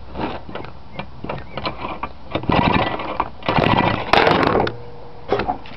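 Two-stroke Tecumseh engine being cranked over by hand against strong compression: light clicks and rattles, then three loud stretches of cranking a little past halfway. It does not start.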